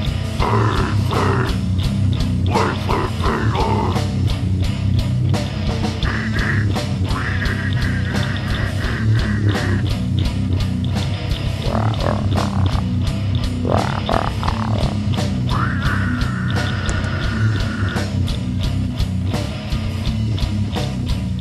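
A heavy metal band playing: distorted guitar and bass over fast, dense drumming, with harsh screamed vocals and long held notes.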